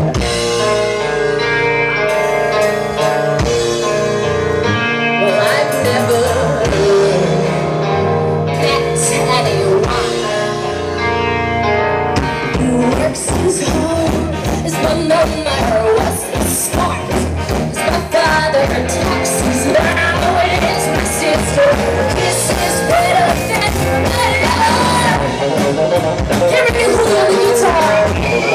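A live alternative rock band of electric guitar, bass guitar and drum kit, with a female lead singer. For the first twelve seconds sustained sung and guitar notes dominate; then the drums come in with dense, rapid hits under the vocal and guitar.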